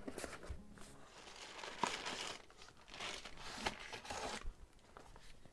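Handling of unboxing packaging: a cardboard accessory box and plastic-wrapped accessories rustling and crinkling in irregular bursts, with a couple of light knocks.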